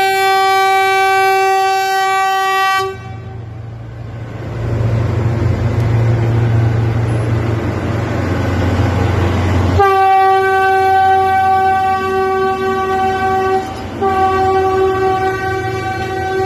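Philippine National Railways diesel locomotive sounding its horn in long, loud blasts as it passes close by: a blast of about three seconds, then the low rumble of the passing train for about seven seconds, then the horn again for about four seconds, breaking off briefly and sounding once more near the end.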